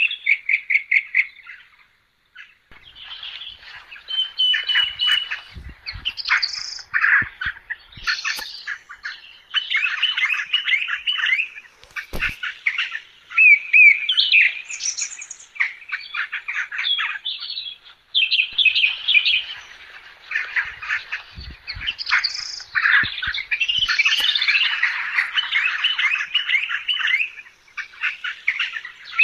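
Many small birds chirping and chattering at once, short calls and trills overlapping almost without a break.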